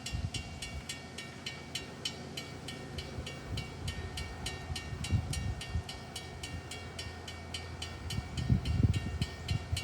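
CSX freight train's diesel locomotive rumbling as it throttles up, with a bell ringing rapidly and steadily, about five strokes a second. The rumble swells about five seconds in and again near the end.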